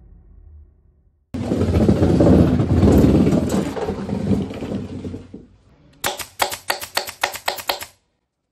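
A loud rushing noise starts suddenly and lasts about four seconds. Then comes a quick run of about eleven sharp clacks, some five a second, from a pneumatic staple gun firing staples into a wooden sofa frame.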